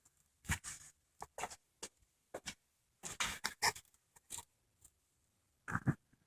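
Scattered light clicks and knocks, a dozen or so irregular taps with a small cluster a little past the middle, from handling the parts of a disassembled bench vise.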